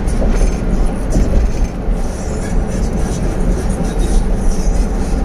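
Steady low rumble of a vehicle driving at speed, heard from inside the cabin: engine and road noise.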